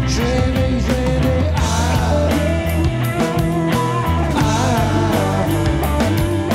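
A rock band playing live: electric guitars over bass and drums at a steady beat, with a wavering melodic line entering about a second and a half in.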